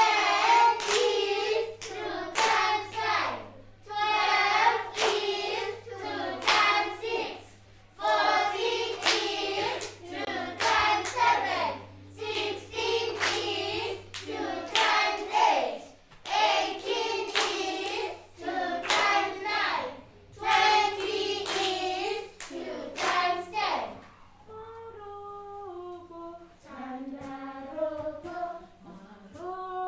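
A class of young children singing in unison while clapping their hands in rhythm. About 24 seconds in, the clapping and group singing stop and a woman sings a quieter melody on her own.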